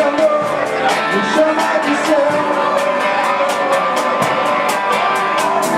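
Rock band playing live, with cymbal strokes about four times a second over sustained pitched instruments.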